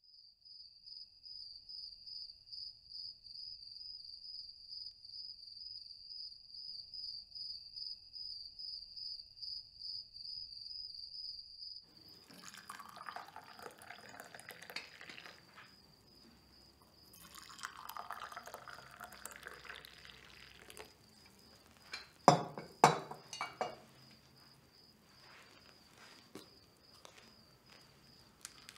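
A steady high whistle, pulsing slightly, for about the first twelve seconds. Then tea is poured from a porcelain teapot into china cups in two pours, followed by a few sharp clinks of china.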